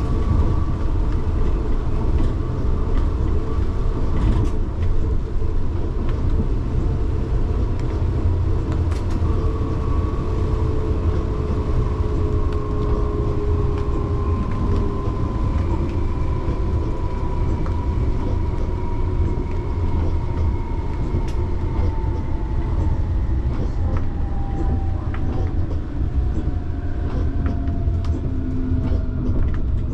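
Light-rail tram running on its track: a steady rumble of wheels on rail, with the traction motor whine falling slowly in pitch as the tram slows, and a few sharp clicks.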